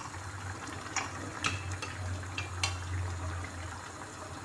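Chicken pieces going into a pan of boiling onion sauce: bubbling and sizzling, with a few sharp clinks of a utensil against the pan about one to three seconds in, over a low steady hum.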